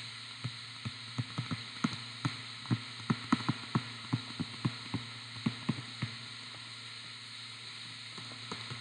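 Stylus tapping and clicking on a touchscreen during handwriting: a quick, irregular run of sharp ticks that stops about six seconds in, with a few fainter taps near the end. Underneath is a steady low hum.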